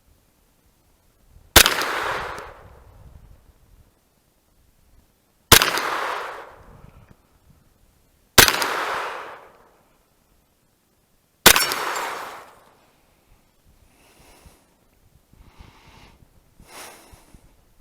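Four slow, deliberately spaced 9mm gunshots from a Kel-Tec Sub2k carbine, three to four seconds apart, each followed by about a second of echo. Faint handling sounds follow the last shot.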